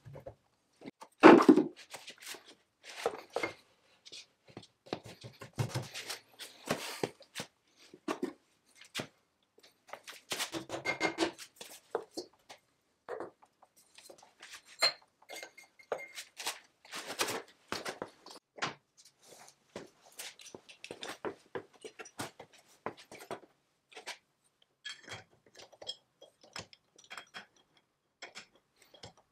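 Cast-iron and steel parts of an early-1900s Barnes No. 5 velocipede lathe being handled and fitted by hand, making irregular metallic clinks, knocks and scrapes. A heavy thunk comes about a second in, and there is a short ringing clatter about ten seconds in. Near the end come lighter, quicker metallic ticks as the change gears are worked.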